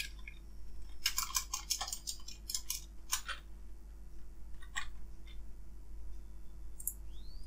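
Computer keyboard keystrokes: a quick run of taps about a second in, then a few single taps spread out, over a steady low electrical hum.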